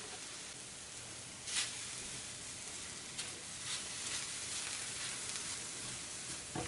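Diced apples sizzling in a nonstick frying pan as a spatula stirs them: a steady sizzle with a few short scraping strokes of the spatula against the pan, the loudest about a second and a half in, and a light knock near the end.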